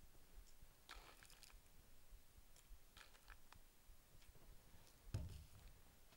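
Near silence with a few faint clicks of a spatula scooping crystals and touching glassware, then a soft thump about five seconds in as a reagent bottle meets the bench.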